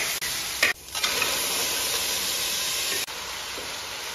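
Snapping-turtle meat sizzling in a hot wok as it is stirred and tossed with garlic sprouts, with a short clatter about half a second in. The sizzle gives way to a quieter steady hiss about three seconds in.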